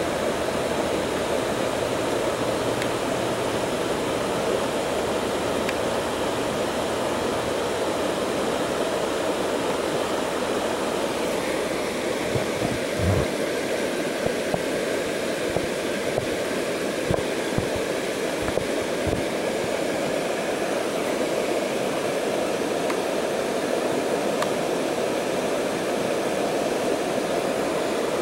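Steady rush of flowing water, with a few soft low thumps around the middle.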